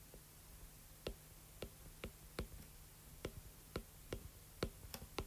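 Stylus clicking against a tablet screen as lines are drawn: a string of short, sharp, faint taps, about two a second, starting about a second in. A faint steady hum lies under them.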